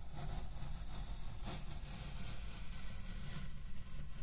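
Y-shaped vegetable peeler shaving a strip down the side of a packed kinetic sand tower: a continuous hissing scrape, a little stronger about a second and a half in.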